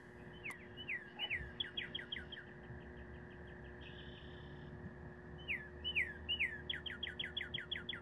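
Northern cardinal singing two phrases of clear whistles. Each phrase opens with a few slurred downward notes that quicken into a fast run of sharp down-slurred notes.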